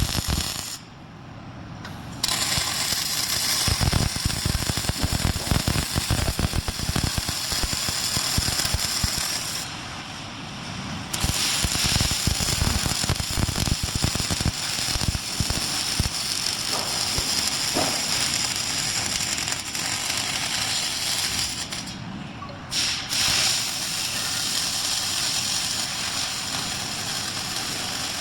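MIG welding arc crackling and sputtering steadily as a robotic welder lays a bead. It breaks off briefly about a second in, again around ten seconds in, and for a moment past twenty-two seconds, between welds.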